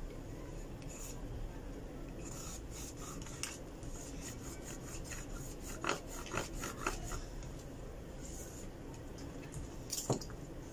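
A cloth being rubbed and scraped along a phone's mid-frame to wipe away leftover adhesive and glass residue, a continuous scratchy wiping. A few sharper scrapes or ticks come partway through and near the end.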